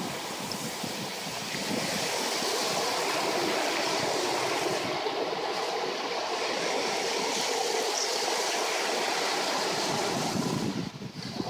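Ocean surf breaking offshore and washing up the beach in a steady rush, dipping briefly near the end.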